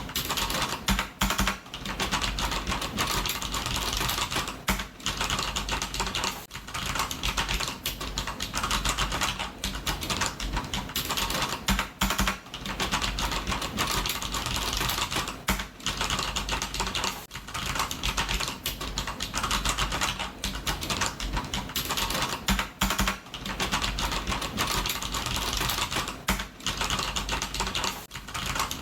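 Continuous fast typing on a computer keyboard: a dense stream of key clicks with short pauses every second or two.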